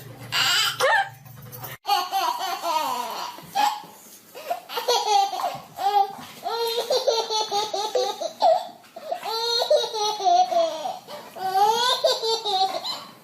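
Baby laughing hysterically in repeated high-pitched bursts of giggles.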